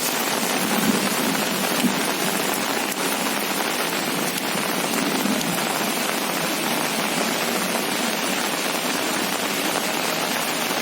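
Steady hiss of rain falling on hard surfaces.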